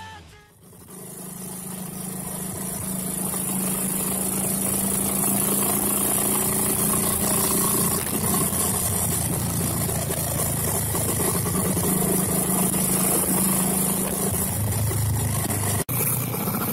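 1954 Matchless G3LS single-cylinder four-stroke engine running steadily as the motorcycle rides along. Its note sinks lower about two seconds before the end, and the sound drops out for an instant near the end.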